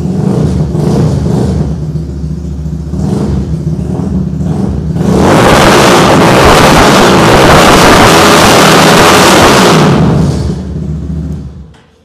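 A 250cc Ducati 1199-replica sport motorcycle's engine idles with a few short throttle blips. About five seconds in it is held at high revs for about five seconds, very loud, then drops back and stops just before the end.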